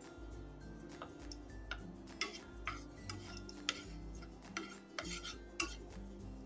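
A spoon clinking and scraping against a pan of ghee, about ten irregular strikes, over soft background music.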